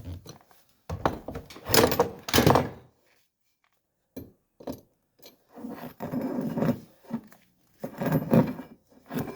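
Knocks, scrapes and clinks of metal parts and hand tools being handled, in several separate bursts. Everything cuts out to dead silence for about a second, about three seconds in.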